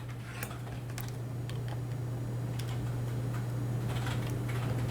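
Faint scattered clicks from handling a USB sync cable and plastic sunglasses, over a steady low hum.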